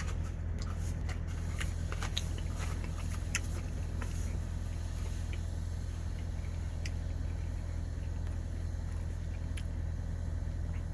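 A person chewing a piece of chocolate, with small faint clicks of the mouth, over a steady low hum.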